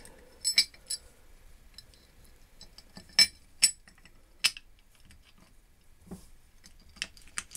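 Small screws and a screwdriver clinking and tapping against the steel carrier plate of a guillotine as it is fitted, about a dozen sharp, irregular metallic clinks, some ringing briefly.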